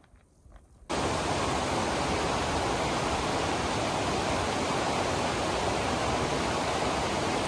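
A few faint ticks, then about a second in a loud, steady rushing noise cuts in abruptly and holds even.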